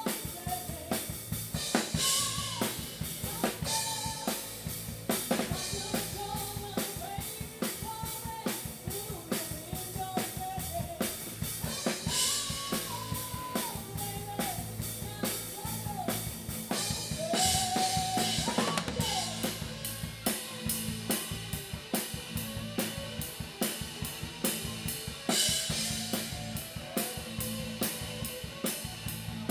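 Live rock band playing, with an acoustic drum kit close and loudest: a driving kick-and-snare beat with cymbal crashes a few times. Bass and a melody line sound over the beat.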